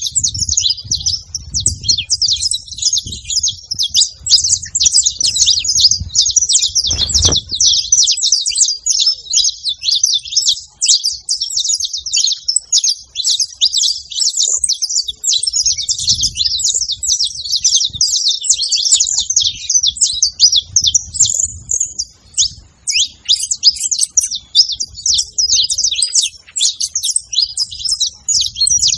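Saffron finch chirping continuously in a fast run of high, sharp notes.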